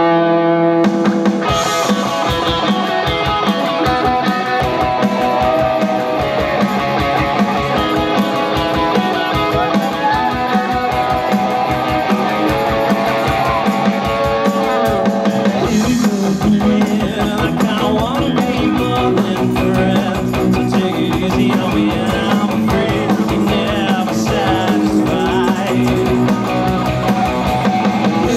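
A rock band playing live: electric guitars, bass guitar and drum kit, with a steady driving beat.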